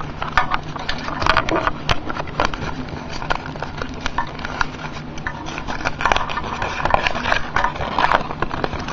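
Paper raffle slips rustling and crackling, with many irregular small clicks, as a hand rummages among them to draw a winner's name.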